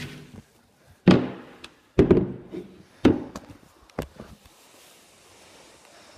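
Handling noise from a phone held close to its microphone: four heavy thumps and knocks about a second apart, as the phone is moved about and set down on a surface.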